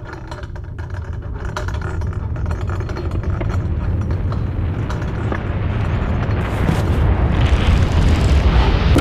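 Sound-design riser: a low rumbling noise swell with a crackling edge that builds steadily louder and cuts off abruptly near the end.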